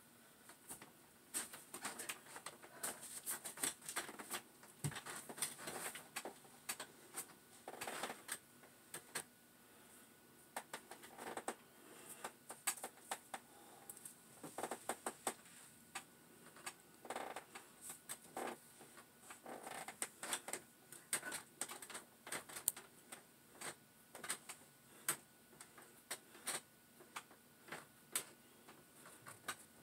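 Quiet, irregular light clicks and creaks of a chair taking a person's shifting weight, some coming in quick clusters.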